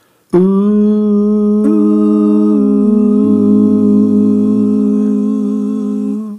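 Wordless humming: a held note of about six seconds, with a second, higher voice joining in harmony about a second and a half in. It cuts off abruptly near the end.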